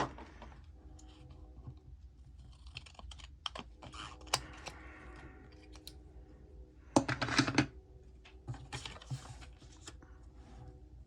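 A paper picture being trimmed and handled: a run of small clicks and rustles, with a louder rustle about seven seconds in.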